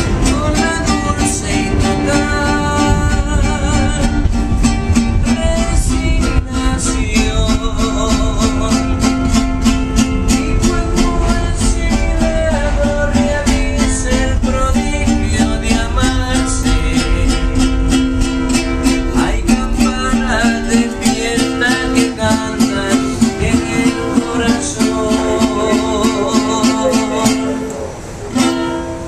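A man singing with vibrato while strumming an acoustic guitar in a steady rhythm, over the low rumble of a moving subway train. The song stops near the end.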